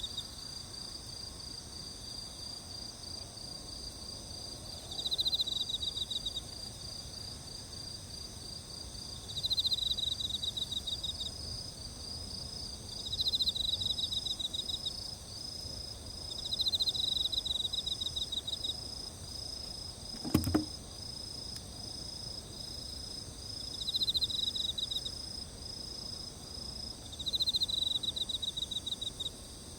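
Crickets and other insects chirping: a pulsed chirp comes in bursts of about a second and a half every three to four seconds over a steady high trill. One sharp pop sounds about twenty seconds in.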